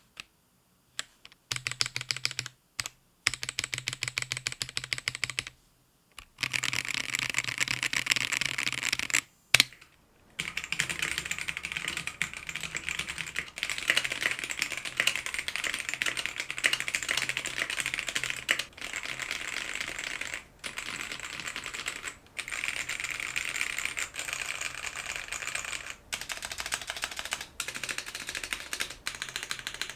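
GamaKay K77 mechanical keyboard with stock Gateron Black linear switches being typed on fast, a dense clacking of keys: a few short bursts with pauses at first, then near-continuous typing from about six seconds in. One sharp click just before ten seconds is the loudest moment, and just after it the typing is heard through an on-camera microphone, with a different tone.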